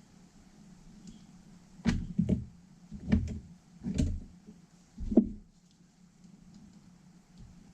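About five knocks and clunks, a second or so apart, from hard parts being handled and set down during hands-on work on a starter motor.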